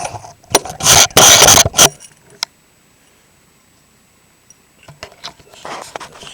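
Loud metallic scraping and rattling as a circlip expander tool is worked against the big snap ring in a turbocharger compressor housing. A single sharp click comes about two and a half seconds in, then quieter scrapes and clicks near the end.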